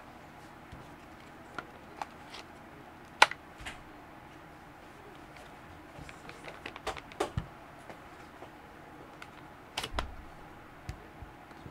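Scattered plastic clicks and knocks from handling a Bosch GDR 10.8-LI cordless impact driver and its slide-in 10.8 V battery pack. The loudest is a single sharp click about three seconds in. A run of clicks comes a little past halfway, and a knock with a dull thud comes near the end.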